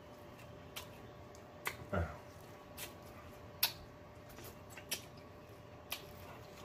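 Close-up eating sounds of fried chicken being chewed: scattered sharp, wet lip smacks and mouth clicks, with a brief low vocal sound falling in pitch about two seconds in.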